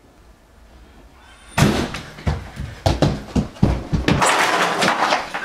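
Quiet room tone, then about a second and a half in a sudden run of loud bangs and thumps, many hits in quick succession.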